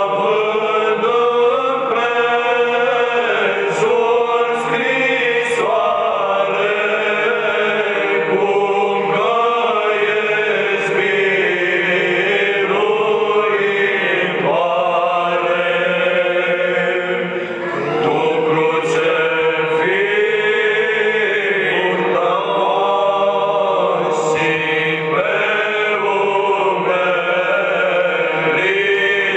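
Romanian Orthodox hymn to the Holy Cross chanted by voices, line after line, with a short breath between phrases a little past the middle.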